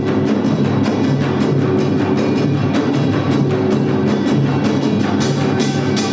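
Samulnori ensemble playing a fast, dense rhythm: janggu hourglass drums and buk barrel drums struck in quick, even strokes under the small kkwaenggwari gongs. The gongs' metallic ringing comes through brighter near the end.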